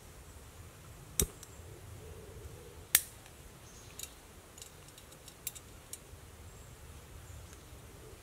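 Metal camping cookware being handled: two sharp clinks, about one second and three seconds in, then a few lighter ticks as steel mugs and pot pieces knock together.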